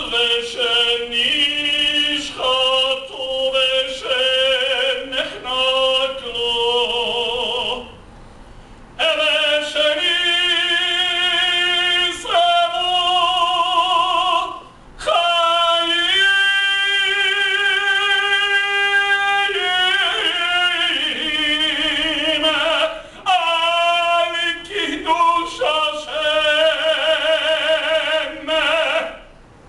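A man singing solo and unaccompanied in a trained, operatic voice, holding long notes with a strong vibrato. The phrases break for a breath about eight seconds in and again about halfway through.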